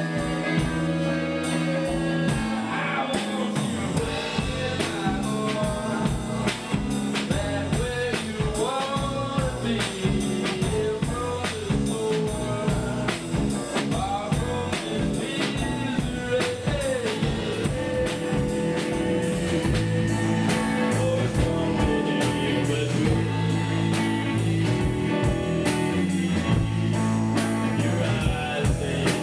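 A band playing a song with a singer: drum kit keeping a steady beat, guitar, and a sung vocal line.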